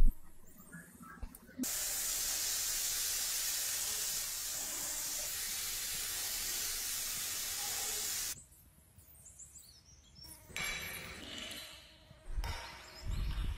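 Gravity-feed paint spray gun spraying, a steady even hiss of compressed air and atomised paint that starts about a second and a half in and stops after about seven seconds. A few short knocks and handling noises follow, with a low thud near the end.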